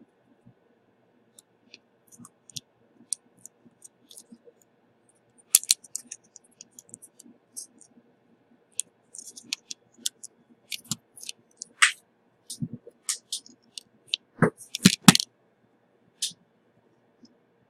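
Scattered small clicks and taps of tools and small parts being handled, with a louder knock about five and a half seconds in and a cluster of sharper knocks near fifteen seconds.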